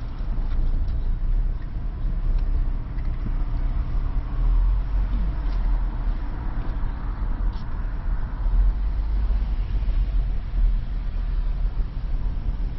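A car creeping forward with its engine running, heard from inside the cabin as a steady low rumble.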